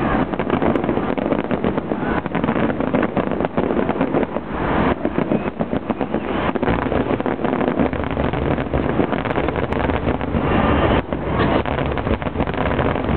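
Fireworks finale: aerial shells bursting in rapid, overlapping succession, a continuous barrage of booms and crackling with heavy low rumble.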